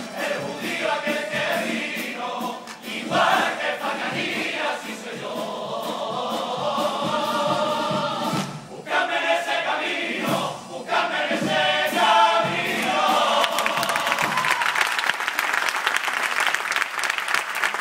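A carnival choir singing the last lines of a pasodoble together, then the audience breaking into applause and cheers about two-thirds of the way in.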